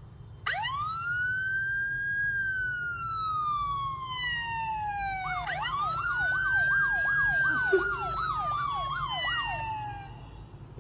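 Police-style siren sound played from a smartphone: a long wail that rises and then slowly falls, followed by a second wail with a fast up-and-down yelp, about two to three sweeps a second, running alongside it.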